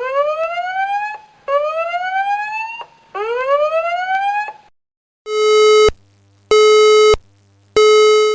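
Electronic alarm sounds: three rising whoop tones, each sweeping upward in pitch over about a second and a half. Then a different alarm follows, with three steady buzzing beeps a little over a second apart.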